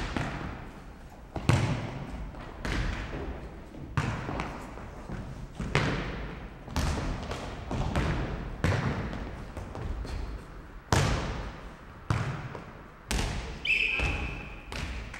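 Futnet ball being kicked and bouncing on a wooden sports-hall floor during a rally: about a dozen sharp thuds, roughly one every second, each ringing out in the large hall.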